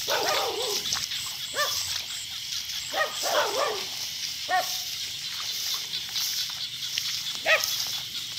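An animal whining in short wavering cries, a few times, over a steady high chorus of night insects.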